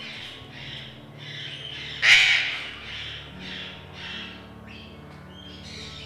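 Eclectus parrots calling: a run of short, harsh calls about two a second, with one much louder squawk about two seconds in.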